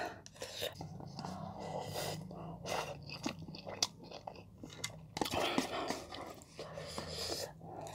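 Close-miked chewing of a mouthful of Samyang Buldak spicy stir-fried instant noodles, with scattered small mouth clicks.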